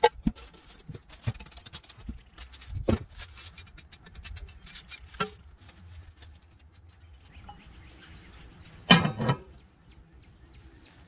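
A cast iron lid set onto a cast iron Dutch oven: a short clatter of metal on metal about nine seconds in, the loudest sound here. Before it, a few scattered light knocks as the pot is handled.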